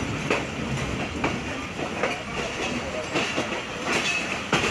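Passenger train coach wheels clattering over rail joints and pointwork, with irregular sharp clicks over a steady running rumble, heard from an open coach doorway.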